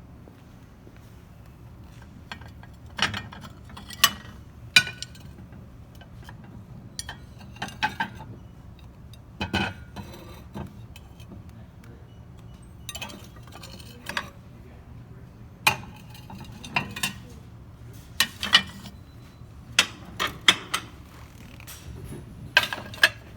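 Scattered clinks and knocks of hard store goods, glassware and dishware, being picked up and set down, some in quick pairs, over a low steady store hum.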